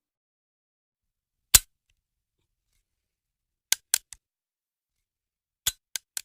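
Seven short, sharp clicks against dead silence: a single one, then a quick run of three, then another quick run of three.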